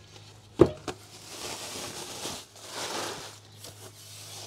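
A sharp knock as a tool or part is set down, then rustling of packing material as parts are unwrapped, over a faint low hum.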